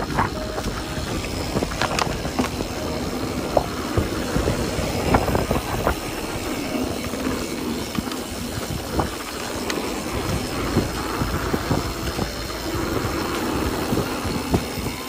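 Mountain bike rolling fast down a dirt forest trail: a steady rumble of tyres on dirt and wind on the microphone, with irregular clicks and rattles from the bike over bumps.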